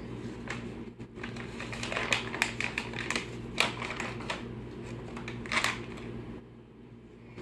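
A dog's claws clicking and tapping irregularly on a laminate floor as she shifts her feet, over a steady low hum.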